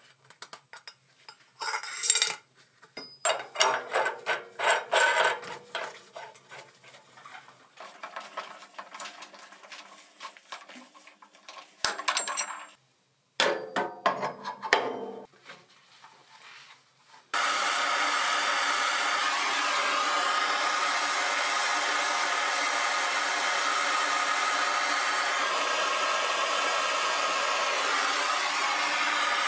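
Copper pipe and brass fittings being handled and pushed together, with scattered clinks, knocks and rubbing for about the first seventeen seconds. Then a handheld gas soldering torch comes on suddenly and burns with a steady hiss.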